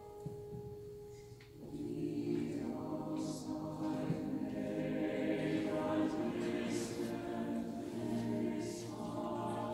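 Mixed choir singing: a single held note hangs for the first second and a half, then the full choir comes in on sustained chords, with soft sibilant consonants now and then.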